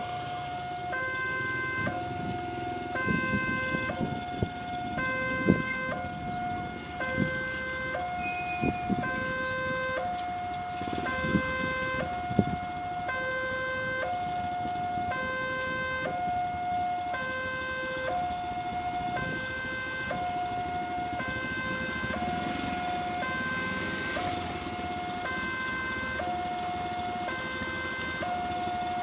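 Railway level-crossing warning alarm with the barriers down, a sign that a train is due. It is an electronic signal that alternates steadily between a higher and a lower note, each held about a second.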